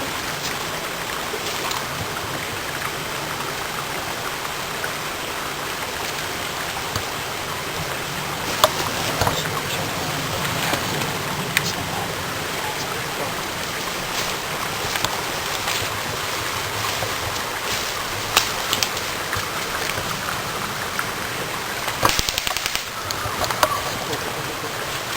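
Steady rush of flowing water, with a few sharp clicks scattered through it.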